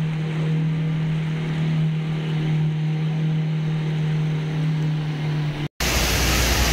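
A steady low hum, like a motor running, that cuts off abruptly about five and a half seconds in and is replaced by a loud, even rushing noise.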